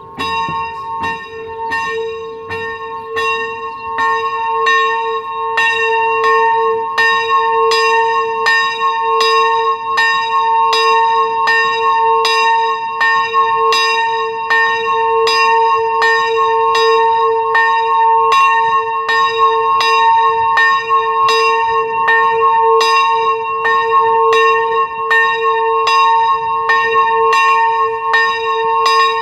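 Single small church bell tuned to a2 (a''), swinging in its turret, its clapper striking about once a second with a long ring between strokes. The strokes grow louder over the first few seconds as the swing builds, then ring on evenly.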